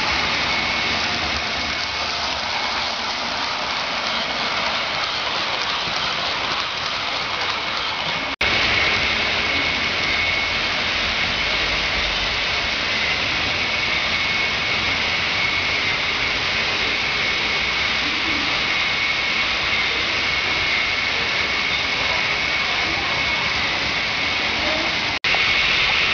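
Model trains running on a large layout: a steady rolling hiss and rumble with a faint high whine, cutting out for an instant twice.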